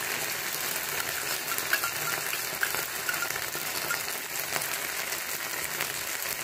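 Chopped onion, capsicum and green chillies sizzling in oil in a non-stick frying pan: a steady frying hiss, with a few faint clicks.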